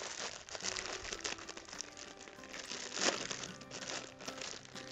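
A sleeve of crackers crushed by hand inside its waxed-paper wrapper: crinkling and crunching, with quiet music of held notes playing underneath.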